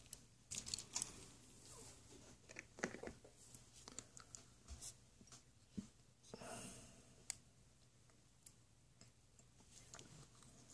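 Faint clicks and taps of small plastic toy figures being handled, with a brief rustle about six and a half seconds in.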